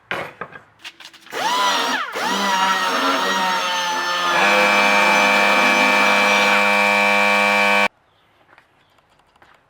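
Electric power tool running at speed: a few clicks, then a loud motor whine whose pitch dips twice under load before holding steady, ending abruptly after about six and a half seconds.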